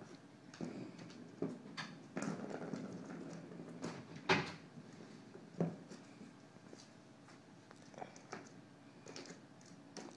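Scattered short knocks and clicks on hard surfaces, with a louder knock about four seconds in and another a little before six seconds.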